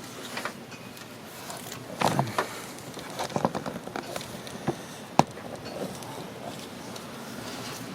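Scattered metal clicks and knocks of hand tools and engine parts being handled during cam gear removal, with a cluster about two seconds in and one sharp click, the loudest, just after five seconds.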